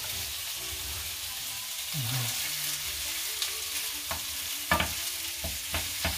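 Diced pork belly sizzling in hot oil in a frying pan as it goes in with the onion, a steady hiss with a few sharp knocks near the end.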